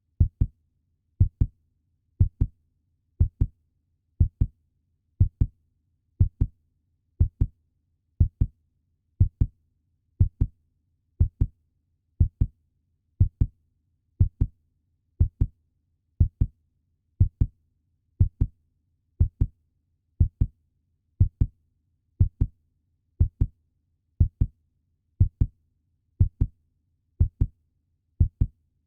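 Puppy heartbeat sound effect: a steady rhythm of double 'lub-dub' thumps, about one beat a second.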